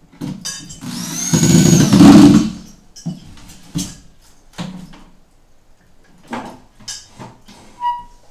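Corded electric drill driving a screw into a melamine cabinet panel: the motor runs for about a second and a half, speeding up and then slowing, followed by a few light knocks as the panels and the drill are handled.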